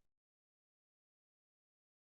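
Complete silence: the sound track is empty, with no room tone.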